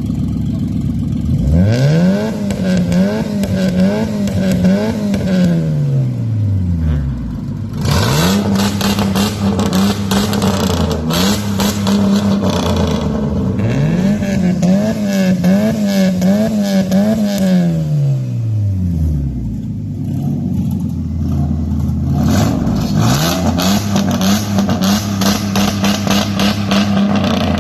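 Two cars' engines revved in turns at a standstill: a 1998 Mitsubishi Eclipse RS through a custom exhaust, and a 2004 Mustang V6 with a bad exhaust leak. There are four rounds of quick blips, each climbing and dropping back, with the engine idling between rounds.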